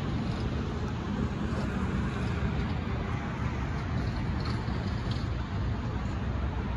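Steady road traffic noise: a low hum of cars and trucks passing on a highway overpass.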